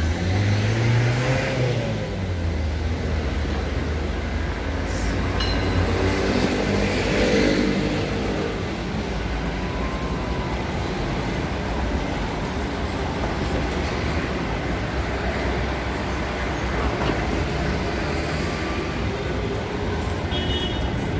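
City street traffic noise: a steady rumble with motor vehicles passing close by. It is loudest in the first two seconds and again around seven seconds in.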